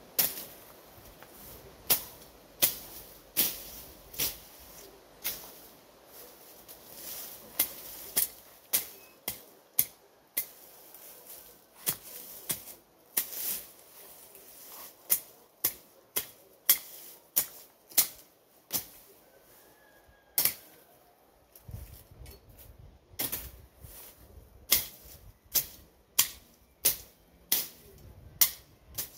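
Machete chopping through grass and weeds: a long run of sharp swishing cuts, mostly one to two a second, with a couple of short pauses.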